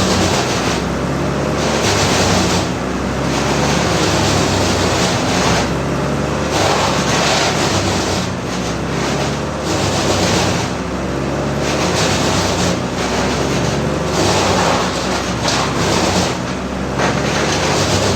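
Several TOMCAT engine-driven woodchippers running together, their engines droning steadily under irregular surges of harsh rushing noise as wood is chipped.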